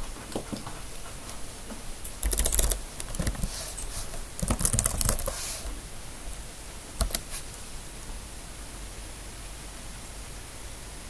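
Computer keyboard typing in two short bursts of keystrokes, then a single keystroke about seven seconds in, followed by only a faint steady hiss.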